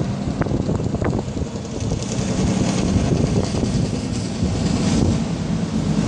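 Steady rumble of passing road traffic, with wind buffeting the microphone.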